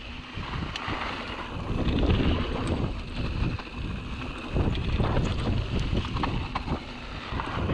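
Mountain bike riding fast down dry dirt singletrack: wind rushing over the microphone, with the tyres on dirt and the bike rattling over bumps in scattered sharp clicks.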